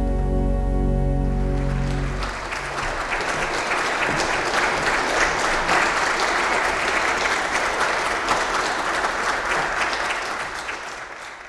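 Pipe organ holding a full closing chord with deep pedal bass, which cuts off about two seconds in. Audience applause follows and fades out near the end.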